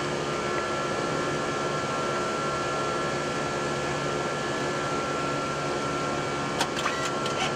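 Steady Airbus A340-300 flight-deck noise during the initial climb after takeoff: an even rush of airflow and air conditioning with a low steady hum and a thin high tone. A few short clicks come near the end.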